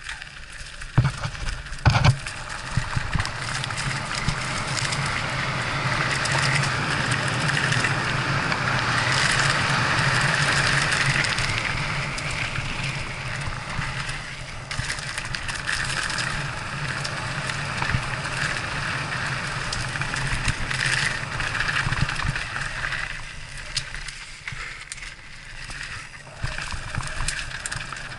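Mountain bike riding fast down a dirt singletrack: tyres rolling over the dirt and the bike rattling, with a steady rushing noise that swells for a few seconds in the middle. There are a couple of hard knocks about one and two seconds in.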